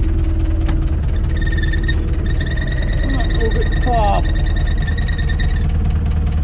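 Renault 651 tractor engine running with a steady low drone, with a loud high-pitched squeal over it from about a second in until near the end.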